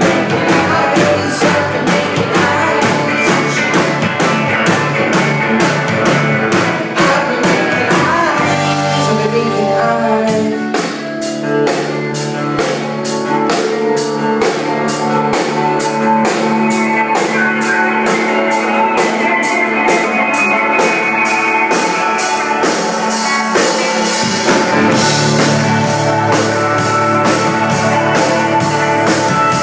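Live rock band playing a song: electric guitars and a drum kit keeping a steady beat, with a singer's voice over the top.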